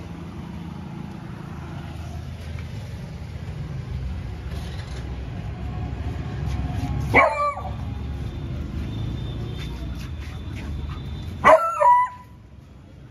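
Young beagle barking at a cow beyond the gate: one bark about seven seconds in, then two quick barks near the end. A steady low rumble runs underneath and cuts off with the last barks.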